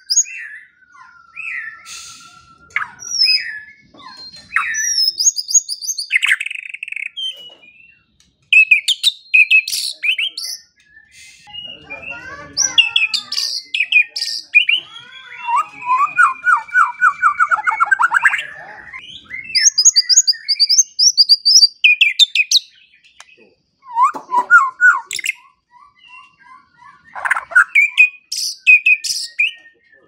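White-rumped shama singing a fast, varied song of whistles, rapid trills and sharp chatter, in bursts with brief pauses between phrases.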